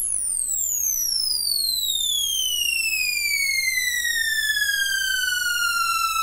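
Sylenth1 software synthesizer playing one sustained note on its Silver Strings preset, its pitch sweeping down from very high, slowing as it falls and settling onto a steady tone about five seconds in. The downward glide comes from the mod envelope being routed to pitch and set to the side that pitches down.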